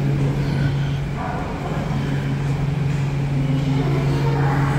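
Steady low hum and rumble inside a funicular railway car as it pulls away from the station.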